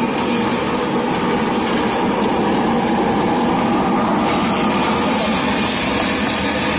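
Industrial hot air popcorn popper machine running, a loud, steady blower-and-motor noise with a faint hum. The sound shifts slightly about four seconds in.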